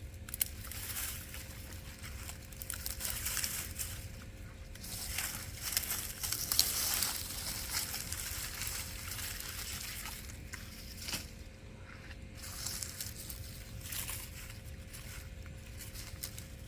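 Dry dead potato vines and garden debris rustling and crackling as they are pulled out of a raised bed, in irregular bursts with the busiest stretch in the middle.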